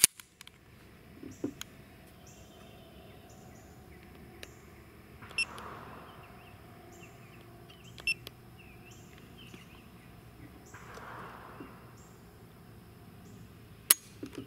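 Faint outdoor background with a few light clicks, then near the end a single sharp metallic click, the loudest sound: the Colt Gold Cup 1911's hammer snapping down on an empty chamber as the trigger breaks under a trigger-pull gauge at about five pounds.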